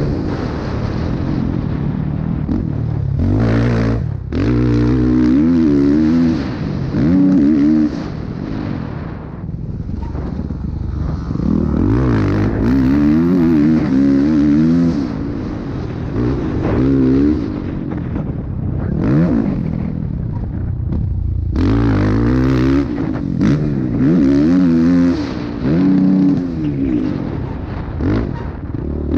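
Motocross dirt bike engine under hard throttle, its pitch climbing in repeated sweeps through the gears and dropping back at each shift or throttle chop. It eases off to a quieter patch about ten seconds in and again around twenty seconds.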